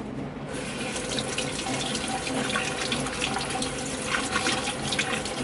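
Kitchen tap turned on about half a second in, water running through a small mesh bag of quinoa being rinsed and splashing into a stainless steel sink.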